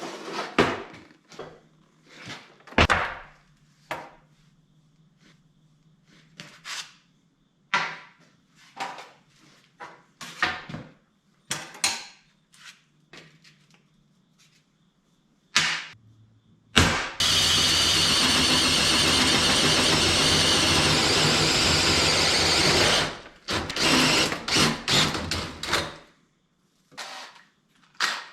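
Metal parts being handled with scattered clanks and knocks, then about halfway through a power drill runs steadily for about six seconds, drilling out holes in a sheet-metal patch, followed by a few more knocks.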